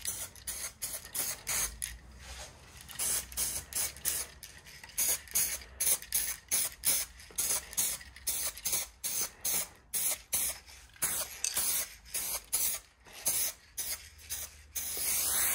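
Two-component (2K) polyurethane aerosol paint can spraying in many short bursts of hiss, about one to two a second, with brief gaps between.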